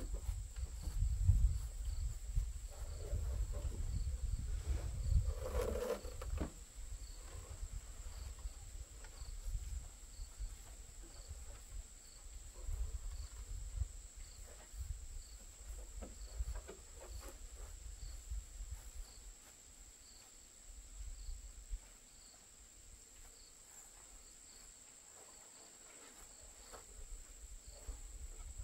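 Insects give a steady high-pitched drone, with a fainter chirp repeating about once a second. Under it are a low rumble and occasional wooden knocks and scrapes as the wooden waterwheel is handled and turned, most noticeably about five seconds in.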